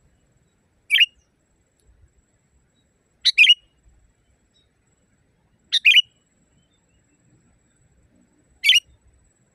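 Sooty-headed bulbul calling: four short, loud calls spaced two to three seconds apart, the middle two broken into two quick notes.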